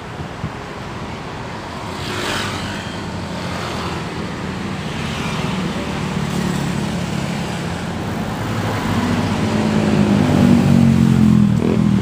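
Busy city road traffic: cars and motorcycles passing, with a swell as one goes by about two seconds in. A low engine drone grows louder over the last few seconds.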